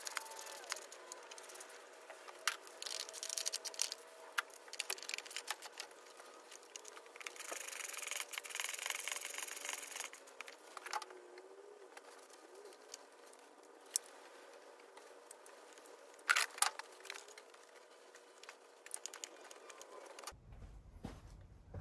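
Tools and engine parts being handled during reassembly: scattered clicks and knocks, with a few seconds of scraping and rustling near the middle.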